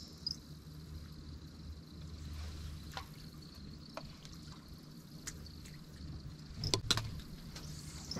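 Boat motor running with a low steady hum, and several sharp knocks, the loudest two close together near the end.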